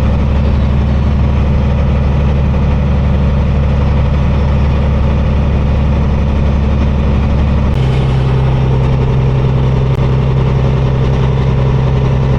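Kenworth semi truck's diesel engine running steadily as it pulls a heavy load, heard from inside the cab. Nearly eight seconds in, the engine note changes abruptly to a different pitch.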